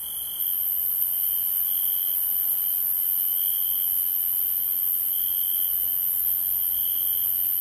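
Crickets singing: a continuous, very high-pitched shrill trill with a lower trill that swells and fades every half-second to second.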